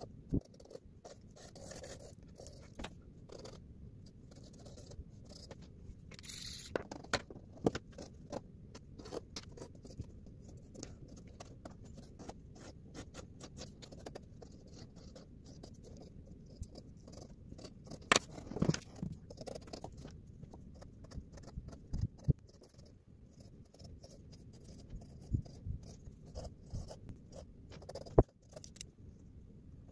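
Pencil scratching and tapping on drawing paper, sped up by the time-lapse into a rapid, uneven run of short scrapes and ticks, with a few sharper clicks.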